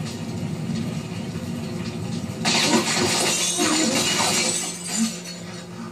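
Film explosion sound effects played through a TV speaker: a low rumble, then about two and a half seconds in a loud, noisy blast that lasts about two seconds.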